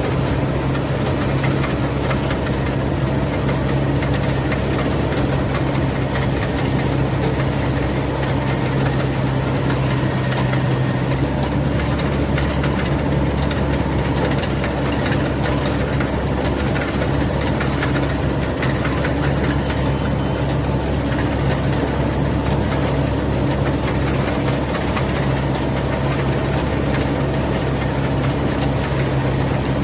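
Rice combine harvester's engine running steadily with a constant hum and a deep rumble beneath it that grows slightly about a third of the way through.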